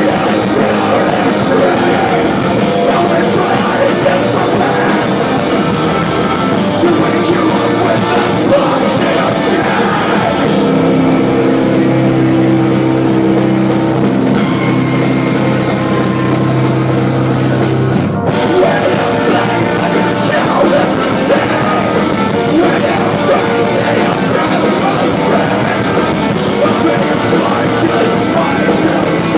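Post-hardcore rock band playing loud live. About eleven seconds in, the band holds a sustained chord for several seconds. It breaks off briefly near eighteen seconds, and then the full band comes back in.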